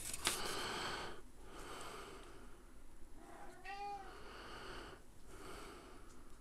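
A domestic cat meowing once, a single call of about a second that rises and falls in pitch, about three and a half seconds in. Around it, the soft rustle of a paper instruction leaflet being handled.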